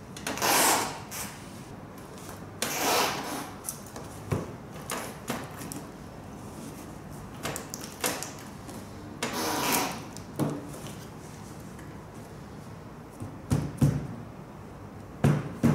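Aftermarket plastic fuel tank on a Yamaha Banshee quad being worked loose from the frame: several short scraping and rubbing bursts with a few light knocks as it is shifted and twisted.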